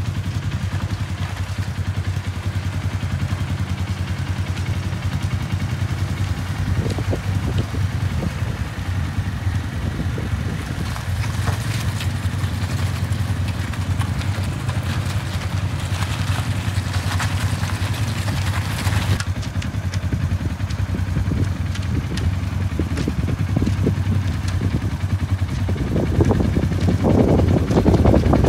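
Polaris Ranger 570 EFI utility vehicle's single-cylinder four-stroke engine running steadily. It grows louder near the end.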